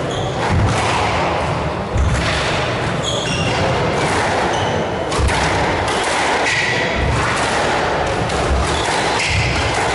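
A squash ball thudding irregularly as it bounces and is struck against the walls and floor of the court, over a murmur of spectators' voices.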